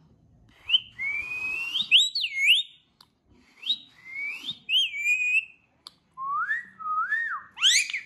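Indian ringneck parakeet making whistled calls: three short phrases of rising and falling glides, the last one starting lower and sweeping up sharply near the end.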